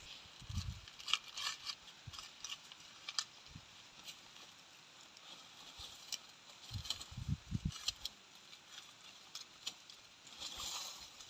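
Dry corn plants crackling and rustling, with scattered sharp snaps and a few clusters of dull low thumps, as ears are picked by hand.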